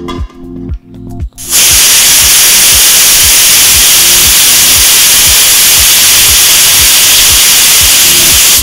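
Pressure cooker whistling: steam blasts out under the whistle weight as a very loud, steady hiss that starts suddenly about a second and a half in. It is the sign that the cooker has come up to pressure, one of the whistles counted to time the dal.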